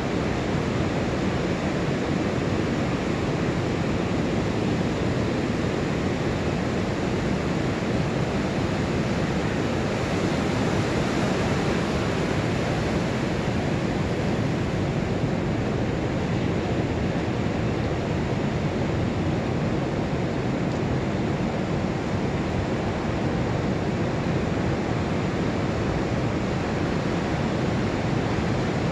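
Pacific Ocean surf breaking and washing up a sandy beach on an incoming tide: a steady, even rush of waves with no single crash standing out.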